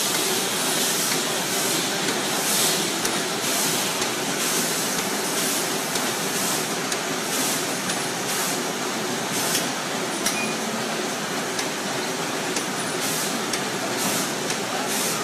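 PFM Hurricane flow-wrapping machine's infeed conveyor running: a steady mechanical hiss and clatter with short, brighter hissing bursts recurring about one or two times a second.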